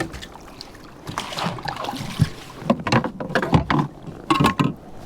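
Irregular knocks, taps and bumps against a fishing kayak as a freshly caught bass is handled and laid out to be measured.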